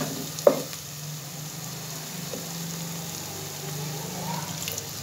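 Meat stock being poured a little at a time into frying masala in a cooking pot, with a single knock about half a second in.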